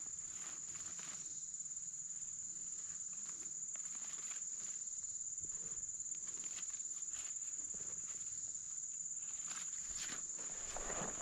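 Steady high-pitched insect chorus, a constant buzzing drone, with faint irregular footsteps and crackles underneath.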